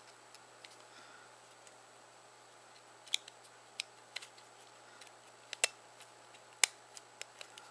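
Small, sharp clicks and ticks of BlackBerry 8330 plastic and metal parts being handled and pressed together as the keyboard assembly is fitted back into the chassis. The clicks are scattered and irregular, starting a few seconds in, with the loudest one near the end.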